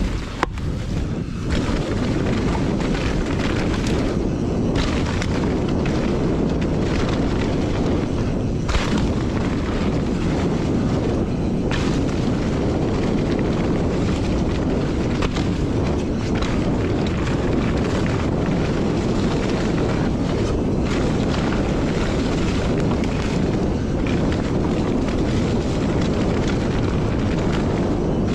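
Steady wind rumble buffeting the microphone of a mountain bike rider's camera on a fast descent, with scattered knocks and rattles from the bike over rough ground.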